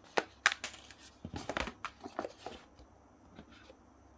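Light clicks and faint rustles of small objects being handled, clustered in the first two and a half seconds: the SIM-ejector pin being picked up.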